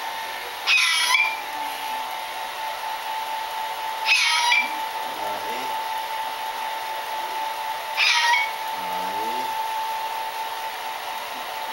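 Hair dryer blowing steadily with a constant whine. Over it a pet animal gives three short, high calls, each about three and a half seconds apart.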